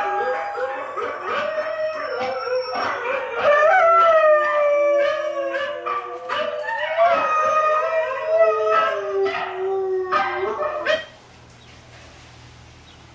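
A husky howling along with recorded huskies howling from a video: several long, wavering howls at different pitches overlap. The howling cuts off suddenly about eleven seconds in, leaving only a faint low hum.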